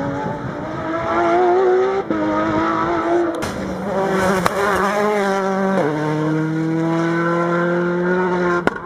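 Rally car engine pulling hard up a stage, working up through the gears: the pitch climbs, drops at each upshift about two, three and a half and six seconds in, then rises through a long pull. Near the end comes a sharp crack, and the engine note falls away.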